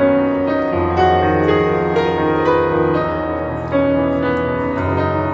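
Background piano music with held chords over a low bass note that changes every second or so.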